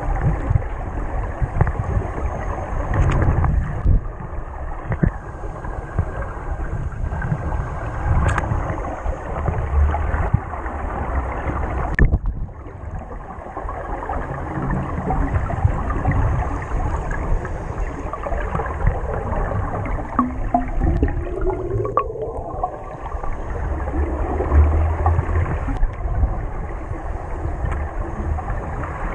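Underwater ambience picked up by an action camera's waterproof housing: continuous muffled rushing and gurgling of water moving over the housing, with low rumbling knocks. A short rising whine comes in about twenty seconds in.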